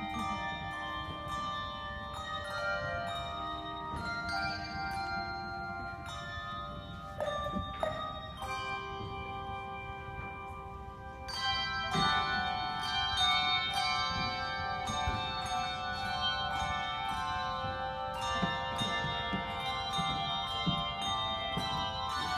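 Handbell choir playing a piece: many bells struck and ringing on together in chords. The music thins and softens for a few seconds around the middle, then comes back fuller and louder.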